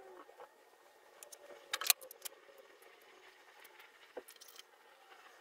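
Light clicks and taps of small parts being handled at a 3D printer's hot-end carriage, with a sharp cluster of clicks about two seconds in and a few faint ticks after.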